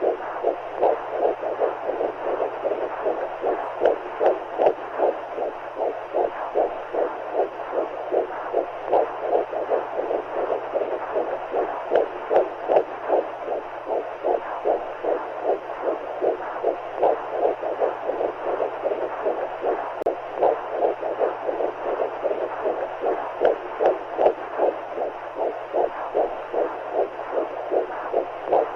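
Womb sound: heartbeats pulsing quickly and evenly, a few beats a second, over a steady whooshing hiss of fluid and a low hum. It is the baby's and the mother's heartbeats mixed with the sound of the amniotic fluid.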